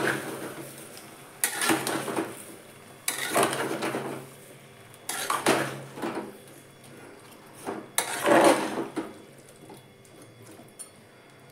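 Spatula stirring chunks of potato and brinjal in a pressure cooker: a scraping stroke every second or two, dying away over the last couple of seconds.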